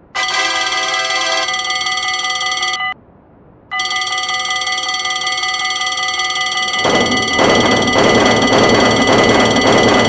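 Railroad crossing warning bells ringing steadily together, breaking off for under a second about three seconds in and then resuming. From about seven seconds in, a passing train adds a loud rushing noise under the bells.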